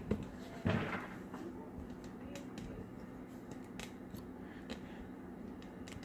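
A few short, sharp clicks of a computer mouse and desk handling, with a soft knock about a second in, over a steady low electrical hum.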